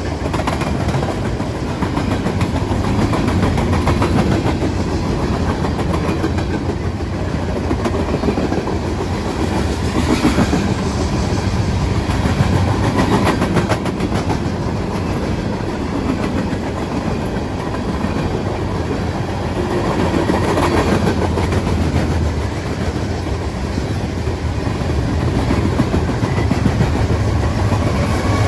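Freight train cars rolling past close by, the wheels clicking and clattering over the rail joints in a steady, loud rumble.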